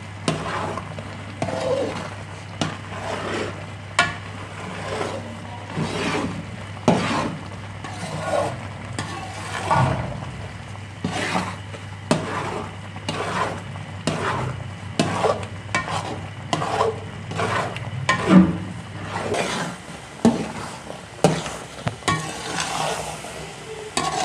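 Spatula scraping and stirring through carrot halwa sizzling in ghee in a steel pot, in repeated strokes about once a second. This is the final roasting (bhunai) stage, with the milk already cooked down to dry khoya.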